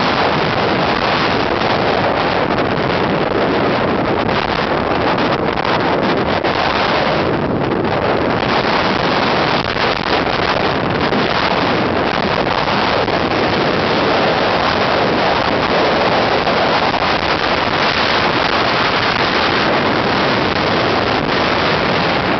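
Hurricane storm surf breaking against a seawall, mixed with strong wind buffeting the microphone: a loud, steady rush of noise with no let-up.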